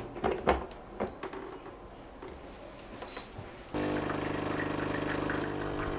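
A few light clicks, then about four seconds in a coffee machine starts abruptly with a steady mechanical hum of its motor or pump.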